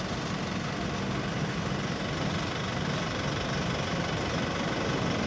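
Heavy diesel engine of a construction machine running steadily at idle.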